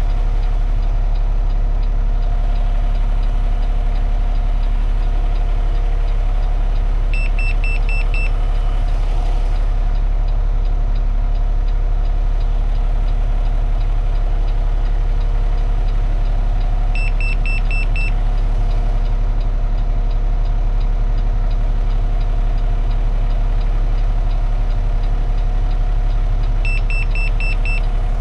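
Refuse truck's diesel engine idling steadily. Three times, about ten seconds apart, a quick run of about five short high beeps sounds over it.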